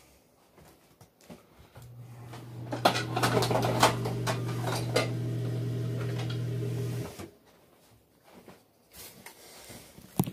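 Kitchen utensils clattering, as if rummaged in a drawer for tongs, mostly in the middle of the stretch. Under it, a steady low hum starts about two seconds in and cuts off suddenly about seven seconds in.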